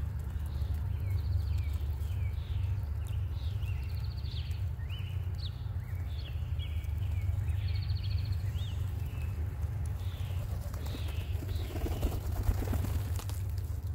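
Small birds chirping in short, repeated calls over a steady low rumble. About eleven seconds in, a band-tailed pigeon flaps its wings in a brief clatter, the loudest moment.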